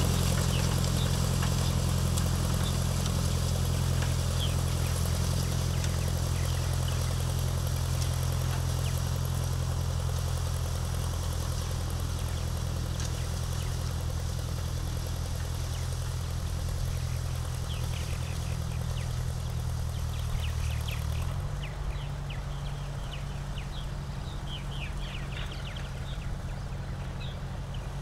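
A 1955 Ford 650 tractor's four-cylinder engine runs steadily while pulling a disc harrow, growing gradually fainter as it moves away. About three-quarters of the way in, the engine note drops suddenly to a lower, rougher sound. Faint high chirps come in over the last several seconds.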